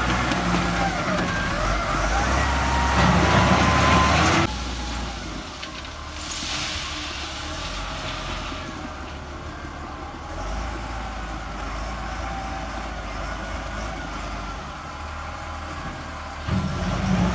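Diesel engine of a LiuGong 836 wheel loader working close by, loud, with a whine that wavers in pitch. About four seconds in it drops suddenly to a quieter, steady engine hum, and near the end the loud engine sound returns just as suddenly.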